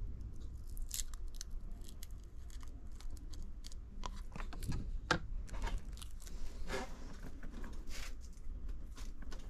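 Small clicks, taps and crackling scrapes of hand tools and parts being handled during an iPhone battery cell replacement, coming irregularly and getting busier about halfway through.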